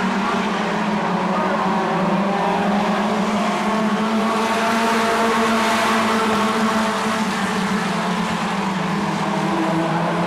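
A pack of stock cars racing on a short oval, their engines running hard together in a steady drone that swells about halfway through as cars pass close by.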